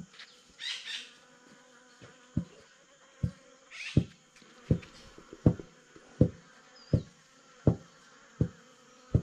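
Rhythmic wooden knocking, about one knock every three-quarters of a second, starting about two seconds in: a woven cassava sieve on its wooden frame being worked back and forth over a wooden trough to sift grated cassava, the frame striking the wood on each stroke.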